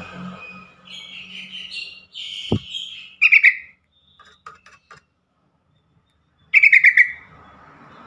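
Yellow-vented bulbul calling: a run of bubbly chattering notes, then a short loud rattling trill about three seconds in and another about a second before the end. A brief low thump comes in the middle of the chatter.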